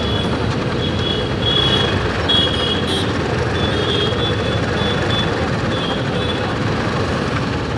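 Steady rumble of road traffic, with short high-pitched beeps coming and going.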